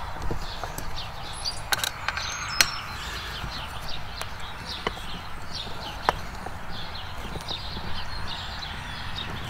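A hex-key screwdriver working bolts in a metal track bracket: a few sharp metal clicks and clinks as the driver seats and turns the hardware, over steady background noise.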